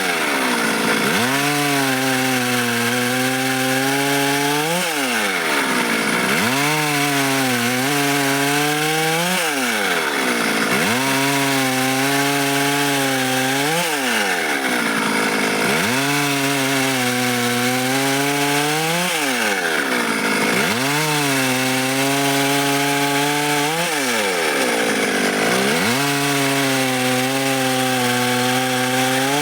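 Stihl MS 382 two-stroke chainsaw making repeated short cuts in dry wood, about one every five seconds. Through each cut the engine note sits lower under load, then rises sharply as the chain breaks through, and drops back as the next cut begins.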